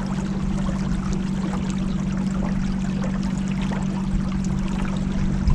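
A boat under way: a steady motor hum with water rushing and splashing along the hull.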